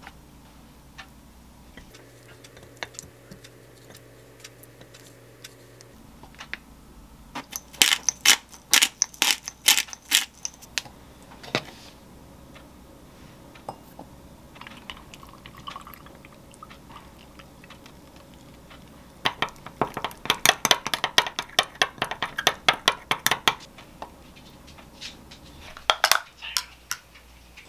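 Tableware sounds of plating food and mixing a protein shake: utensils clicking against ceramic plates and a glass in two quick runs, with a soft hiss of protein powder being poured into the glass. There is a brief low hum early on, and a louder knock near the end.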